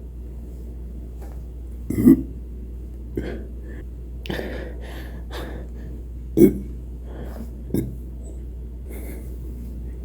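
A person burping: two loud, short burps about two seconds in and about six seconds in, a few smaller ones, and audible breaths in between.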